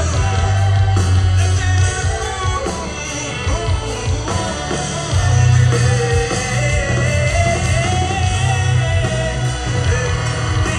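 A live rock band playing, with a singing voice over a heavy bass line.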